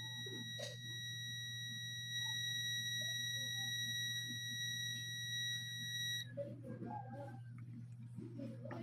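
Digital multimeter's continuity beeper giving one steady high beep for about six seconds, then cutting off, while its probes bridge two commutator bars of a vacuum cleaner motor armature reading under one ohm, a sign that the winding between those bars is intact. A steady low hum runs underneath.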